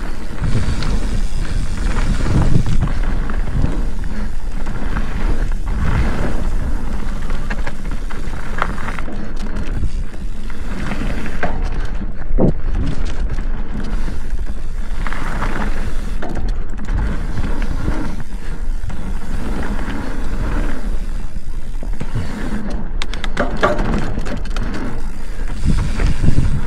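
Mountain bike riding down a dirt singletrack: tyres rolling over the trail and the bike clattering and rattling over bumps, over a steady low rumble.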